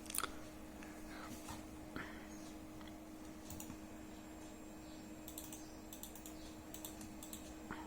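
Faint, scattered clicks of a computer keyboard and mouse being used, over a steady low hum.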